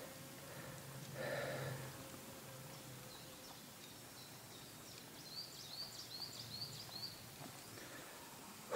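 Faint outdoor ambience with a small bird singing a quick series of about seven high, rising chirps over about two seconds. Before that there is a soft breath about a second in, and a short puff on the microphone comes at the very end.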